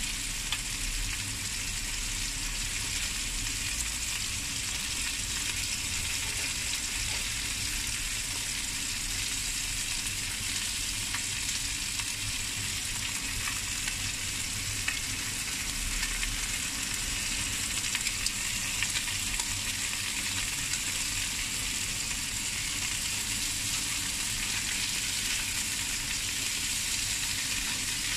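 Small whole fish sizzling steadily in hot oil in a nonstick frying pan, being turned to fry the other side, with a few light clicks of metal tongs against the pan.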